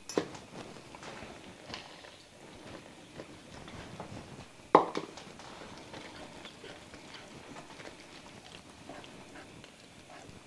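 Wire whisk stirring grated cheese into a thick sauce in a skillet: soft scraping and light taps against the pan, with a couple of sharper knocks, the loudest about five seconds in.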